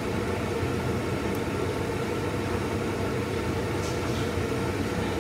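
Steady low mechanical hum with a faint steady whine: kitchen background noise with the wok on the lit gas hob.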